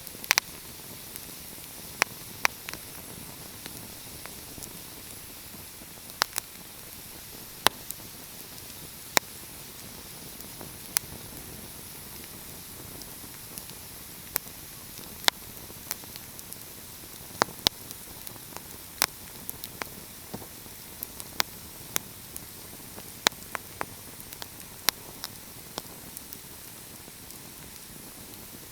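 Wood fire burning with a steady hiss and sharp, irregular crackles and pops every second or two, some coming in quick clusters.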